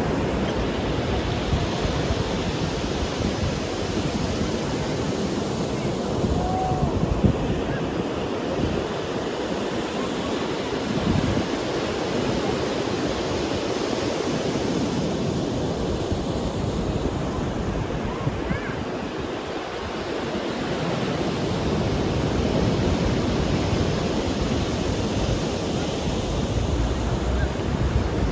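Ocean surf on a beach: waves breaking and washing in a continuous roar of noise that swells and eases slowly.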